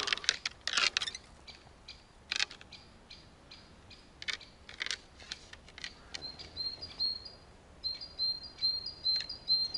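A small bird singing a fast, regular series of short high chirps, starting about six seconds in. Earlier there are a few sharp rustling clicks.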